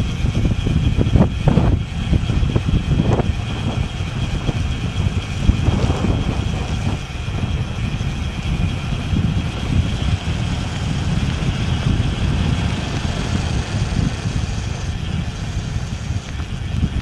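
Wind buffeting the microphone of a camera riding on a moving bicycle: a loud, gusty low rumble that rises and falls, over a steadier hiss.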